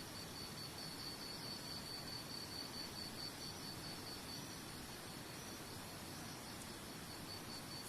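Crickets chirping in a fast, steady pulsing trill, fading briefly about two-thirds through, over a continuous soft background hiss.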